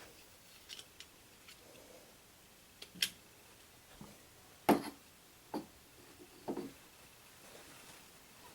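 A quiet room with about ten scattered light knocks and clicks, the loudest a few seconds in.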